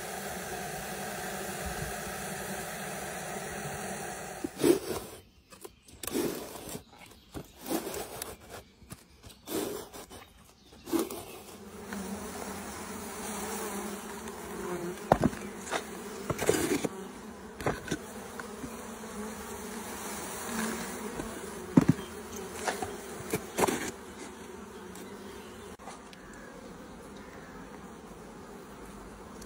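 Honeybees buzzing as a crowded mass, a steady hum. It breaks off briefly several times between about five and eleven seconds in, and a handful of sharp knocks and clicks stand out above it.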